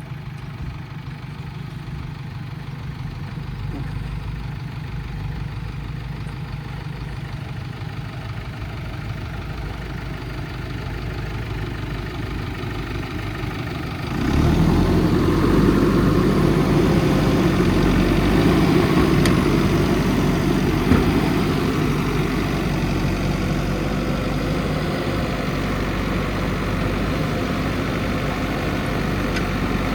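Heavy diesel engine idling steadily, then revving up suddenly about halfway through and staying at higher revs, louder and fuller.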